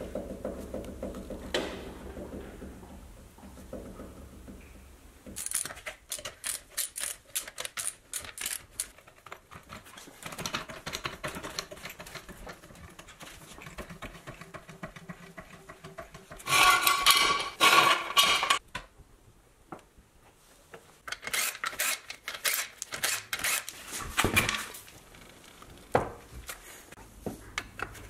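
Metallic clicks, rattles and clanks from hand tools and a hydraulic floor jack being worked at a car's front wheel, in short runs, with the loudest clatter of metal about two-thirds of the way through.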